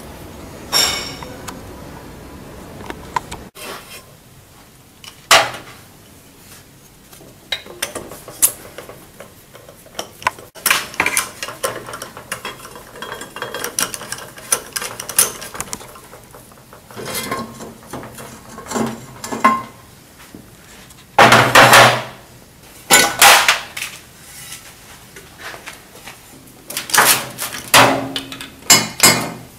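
Steel hand tools clinking and clanking on a car engine's cylinder head: a socket extension bar being handled and set down, in scattered knocks with louder bunches of clanks about two-thirds of the way in and again near the end.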